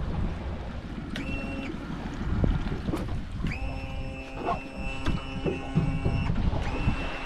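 Small outboard-powered boat underway at low speed: a running rumble with a steady high whine that cuts in and out three times, the longest stretch about three seconds.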